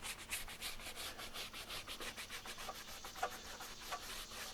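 Rhythmic scrubbing of a motorcycle tire wet with wheel and tire cleaner, about four strokes a second, working the brown discoloration off the rubber.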